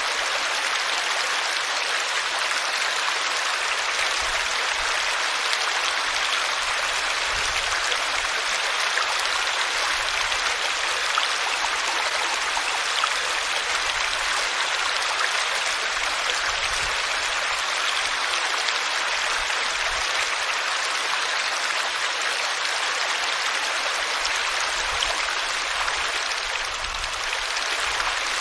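Water flowing in a stream, a steady rush with no breaks.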